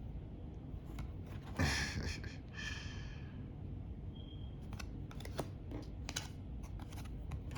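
Tarot cards being handled and flipped: a short rustle of card stock, then a run of light clicks and taps in the second half as cards are moved.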